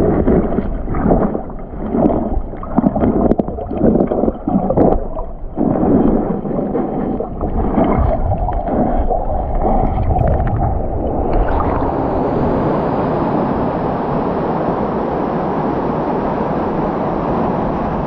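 Muffled sloshing and gurgling of water heard by a microphone underwater, in irregular surges. About eleven seconds in, the sound opens out into a steady rushing hiss of a waterfall pouring into the pool.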